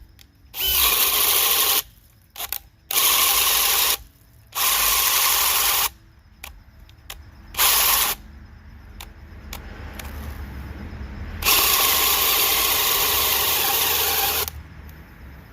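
DeWalt DCD996 cordless drill on its third, highest speed, boring a bit deep into oak in a series of trigger pulls of one to two seconds each, then a longer run of about three seconds near the end. The tool is working hard in the hardwood, enough to overheat.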